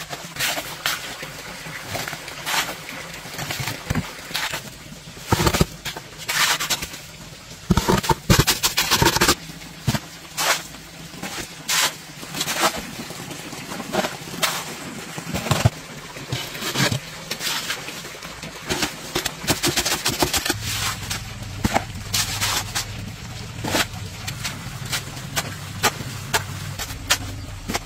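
Steel shovel scraping and scooping through wet cement-and-sand mortar in a run of irregular scrapes and knocks. About two-thirds through, a low steady motor hum starts underneath.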